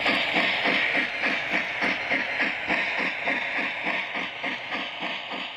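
Steam locomotive chuffing from a Lionel Berkshire model's electronic sound system: an even, quick beat of about five to six chuffs a second with a hiss over it, fading out slowly toward the end.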